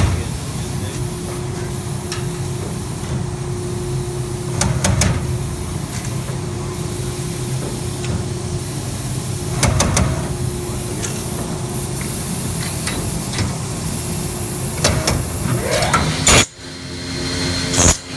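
Spacer bending machine running with a steady mechanical hum and a faint steady tone, broken by several sharp knocks. The loudest knock comes near the end and is followed by a sudden brief drop in level; these knocks fit the thumping or banging noise the machine occasionally makes.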